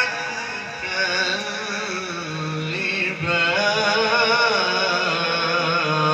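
A man chanting Quranic recitation in a melodic style, drawing out long wavering notes, with a brief break about three seconds in.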